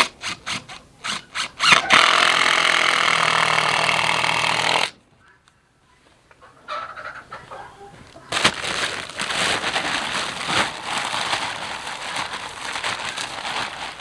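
A cordless drill drives a screw into a wooden batten for about three seconds, after a few sharp clicks. After a brief gap comes a long stretch of rustling and crackling with scattered knocks.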